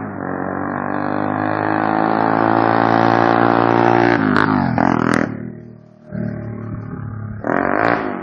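Motorcycle engine running through a homemade TOCE-style exhaust, a steady drone that builds slightly in pitch. About four seconds in come quick throttle blips that rise and fall, then it drops back, with another short rev near the end.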